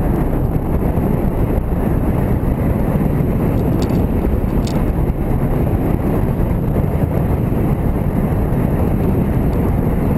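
Steady low rumble of a motorcycle ride: wind buffeting the microphone over the engine and tyre noise.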